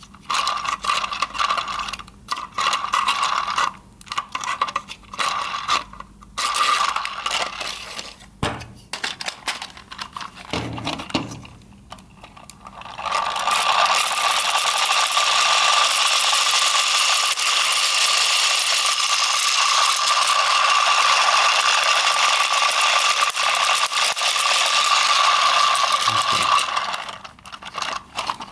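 Plastic gear train of a 3D-printed mechanical fan: irregular clicking and scraping for about the first half, then a steady whirring of the spinning gears with a whine, which starts about 13 seconds in and stops a second or two before the end.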